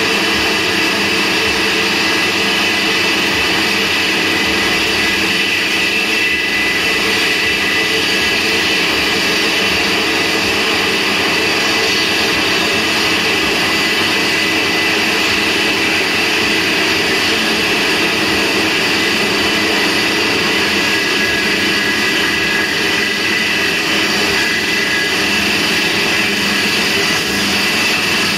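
Homemade band saw driven by a 4 kW electric spindle, running with a loud, steady whine as its rusty blade saws through a polystyrene block.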